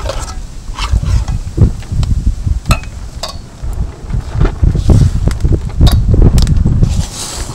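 Low, gusty wind rumble on the microphone, with scattered clicks and taps of hands and a steel spoon against stainless steel bowls as palm pulp is worked into flour by hand.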